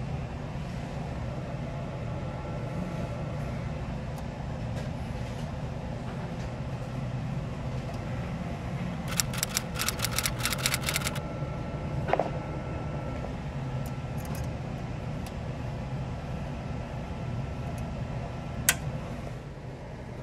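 Steady low machine hum under a freezer's condensing unit. About nine seconds in comes a two-second run of quick metal clicks as a hand tool works on a line-tap valve on the copper line, then a knock a few seconds later and one sharp click near the end.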